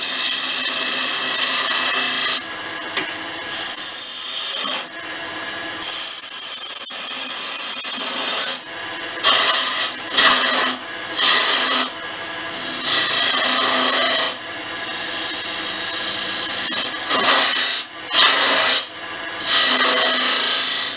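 Woodturning gouge cutting a spinning sycamore blank on a lathe, refining its outside shape. The hissing, scraping cut comes and goes in passes of a second or two, over the lathe's steady hum.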